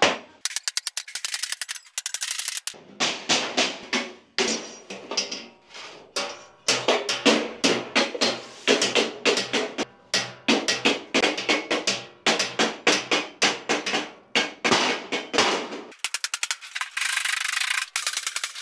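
Wooden mallet striking galvanized steel sheet along a folded edge, over and over: sharp metallic bangs, in a quick run of rapid blows near the start and then at an uneven pace.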